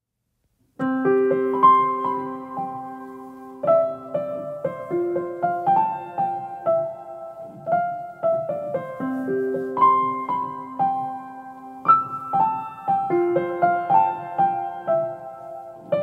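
Background piano music: a slow, gentle piano melody over held chords, starting about a second in after a brief silence.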